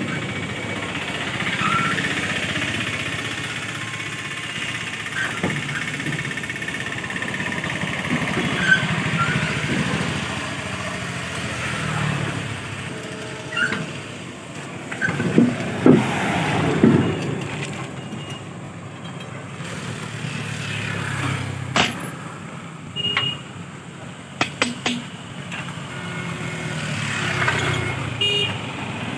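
A vehicle engine running steadily throughout, with a few sharp clicks and knocks over it about three-quarters of the way through.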